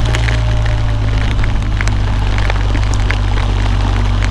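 BMW R1250 GS Adventure's boxer-twin engine running steadily at low road speed in heavy rain. Scattered, irregular ticks of raindrops striking the bike and camera sound over a hiss of wind and spray.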